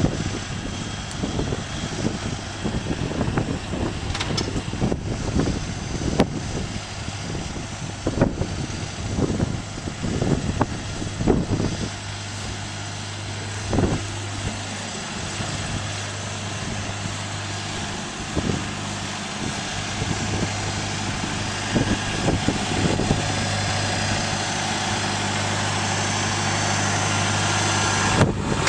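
Farm machine's diesel engine running steadily, with a string of knocks and rattles over the first dozen seconds, then a smoother, slowly building drone.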